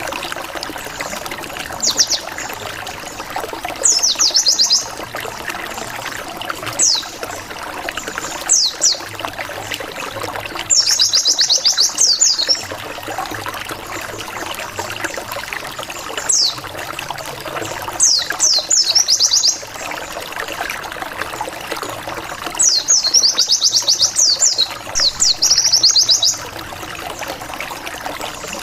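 White-eye (pleci) song in the wild 'ngalas' style: bursts of rapid, high, sharp 'wit wit wit' notes every few seconds, some single quick calls and some trills of a second or two. They are set over a steady trickling background. It is a lure song meant to make rival white-eyes answer.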